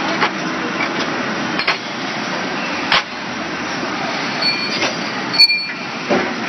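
Automatic CNC lathe turning brass bar stock, with coolant spraying on the work: a steady mechanical clatter and hiss. Sharp metallic clicks come about three seconds in and again about five and a half seconds in, the second with a brief ring.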